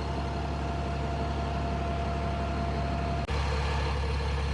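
Steady low engine drone, like an idling motor, with a higher thin tone over it; both break off for an instant about three seconds in, and the drone resumes slightly louder without the tone.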